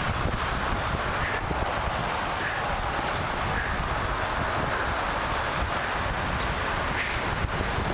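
Steady wind noise buffeting a helmet-mounted camera's microphone while cycling, mixed with the sound of car traffic going by.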